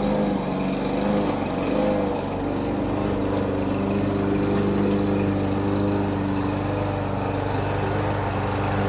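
Small petrol lawn mower engine running, its pitch wavering slightly in the first couple of seconds and then holding steady.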